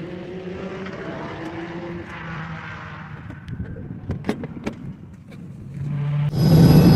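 A helicopter's piston engine runs steadily, its pitch rising slightly at times, with a few sharp clicks in the middle. Near the end, loud music comes in.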